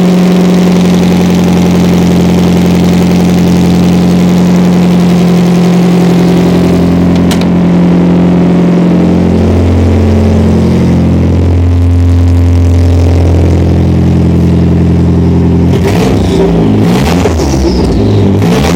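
Mitsubishi Lancer Ralliart's exhaust running at a steady engine speed, with a strong even drone that shifts in pitch partway through. About 16 seconds in it turns rough and uneven.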